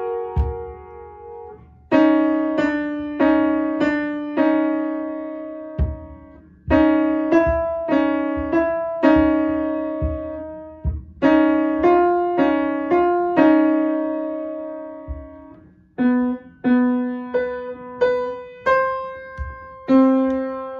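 Ludwig Meister upright piano played by a child: a simple melody of single struck notes in the middle register, each left to ring and fade. The notes come in short phrases with brief pauses between them, about every four to five seconds.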